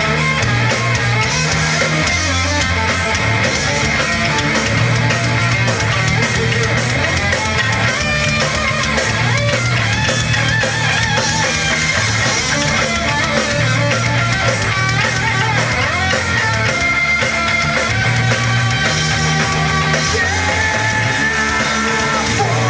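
A rock band playing heavy, loud music live: electric guitar riffs over a moving bass-guitar line and a steady drum beat.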